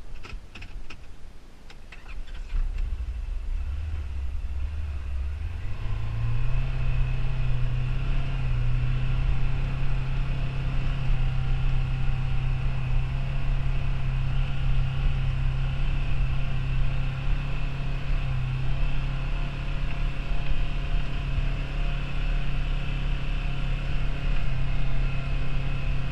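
Side-by-side UTV engine running, with a few sharp knocks near the start. About five seconds in the engine speeds up, then holds a steady hum.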